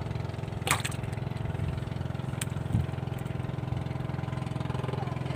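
A small engine idling steadily, with a couple of sharp clicks in the first three seconds.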